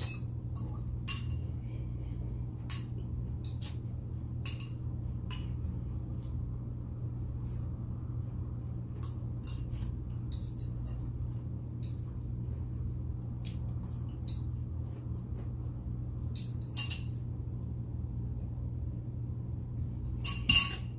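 Cutlery clinking and tapping against a plate and dishes while eating: scattered light clicks over a steady low hum, with a louder cluster of clinks near the end.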